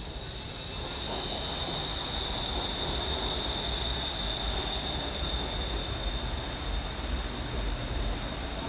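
Bangkok BTS Skytrain electric train running in along the platform and slowing: a rumble of steel wheels on rail growing louder about a second in, with a high, steady whine over it.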